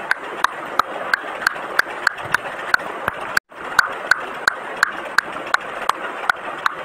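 A steady clip-clop of short clicks, about three a second, over a hiss, matching animals walking. It cuts out briefly about three and a half seconds in, then goes on.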